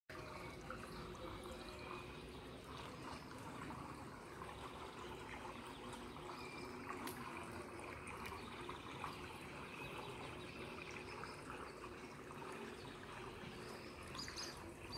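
Faint, steady trickling of pool water, as from water spilling over the pool's edge into its overflow gutter.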